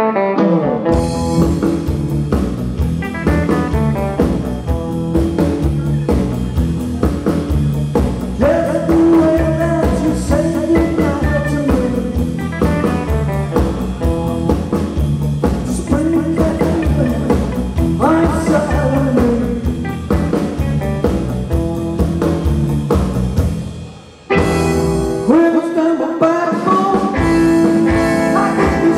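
Live rock and roll band playing loud on stage: electric guitars, electric bass and drums, with a man singing. Near the end the band stops dead for a moment, then crashes back in.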